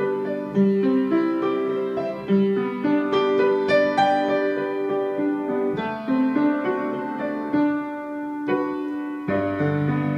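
Solo piano playing a slow, gentle piece: a flowing line of single notes over lower notes, with a new low bass note coming in near the end.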